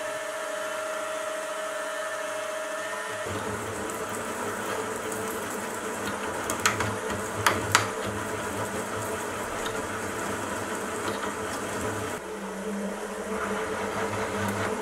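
Milling machine spindle running while a drill bores a hole in a metal block, with a few sharp clicks in the middle; about twelve seconds in the sound changes as a counterbore cuts the seat for an M5 cap head screw.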